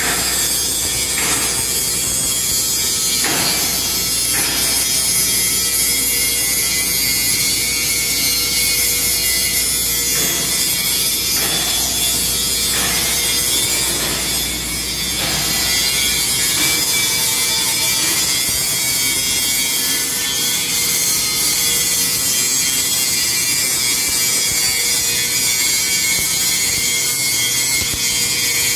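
Angle grinder grinding steel: a loud, steady high hiss, with a few short knocks in the first half. A low hum under it stops about halfway through.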